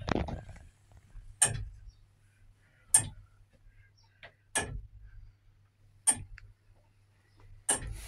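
Old mechanical tower clock's iron movement ticking, one sharp tick about every second and a half.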